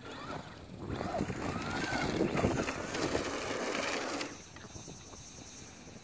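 Traxxas Slash 2WD RC truck driving over loose dirt, its motor and tyres making a rushing, hissing sound that swells about a second in and drops away sharply about four seconds in.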